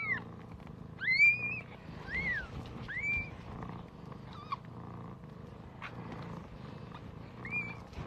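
Newborn Siberian kittens mewing in short, high-pitched cries, about one a second for the first few seconds and once more near the end, over the mother cat's steady low purring.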